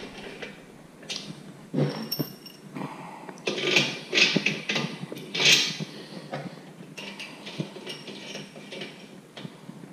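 Steel bolts, washers and the metal carrier frame clinking and scraping as they are handled, a long bolt being pushed through the frame and its spacer tube. Several louder scrapes come from about three and a half to six seconds in.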